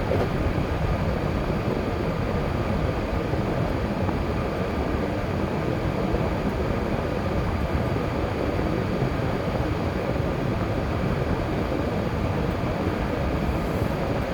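A car driving at a steady speed: continuous road and tyre noise with a low engine rumble.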